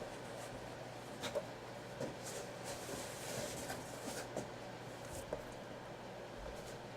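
Faint, scattered small clicks and light rubbing or rustling, a few at a time, over a steady low electrical hum.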